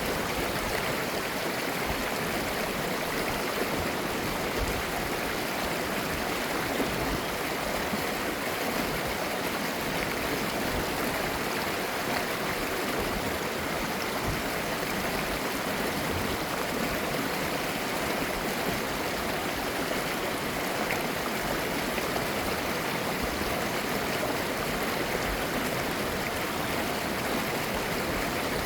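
Clear mountain valley stream flowing over rocks, a steady babbling of running water.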